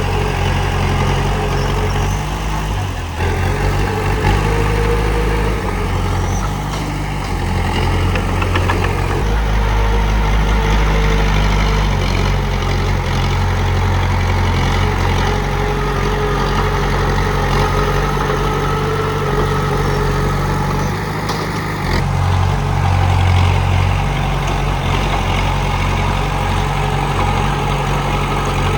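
Komatsu D31P bulldozer's diesel engine running steadily. Its low rumble swells and eases several times, around 3, 9 and 22 seconds in.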